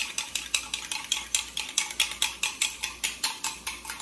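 Raw eggs being beaten in a cup with a metal utensil: a fast, even clicking of the utensil against the cup, about six strokes a second.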